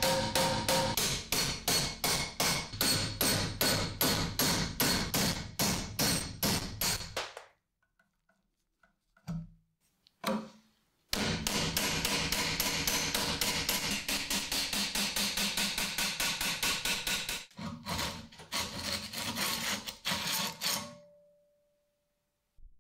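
Hammer rapidly tapping a pin punch, about four blows a second, driving the old pins out of a cleaver's wooden handle held in a vise. About a third of the way in the blows stop, with two lone taps in the pause, then a second long run of blows follows before they stop near the end.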